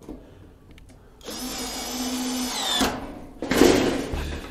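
Power drill running for about a second and a half while driving a fastener during assembly of the gas griddle, then stopping abruptly. A short, louder clatter follows soon after.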